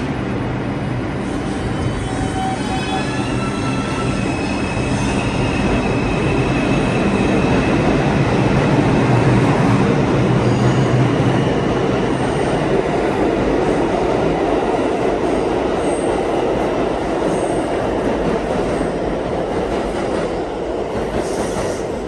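R142 subway train pulling out of the station. Its electric motors whine in tones that climb in pitch as it gathers speed, under a heavy rumble of wheels on rail. The sound peaks as the cars pass, with a few faint high wheel squeals, and thins near the end as the train recedes into the tunnel.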